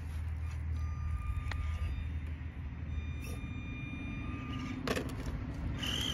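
Small electric RC rock crawler working its motor to climb a rock face, a thin steady whine over a low rumble. About five seconds in there is a single sharp clatter as the crawler tips over against the rocks.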